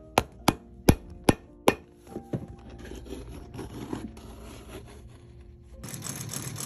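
Five sharp hammer blows driving a small nail into a new leather half sole, followed by two lighter taps. Near the end a sole-stitching machine starts running with a fast, even rhythm.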